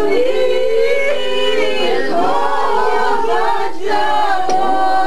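A group of people singing a song together without accompaniment, in long held notes.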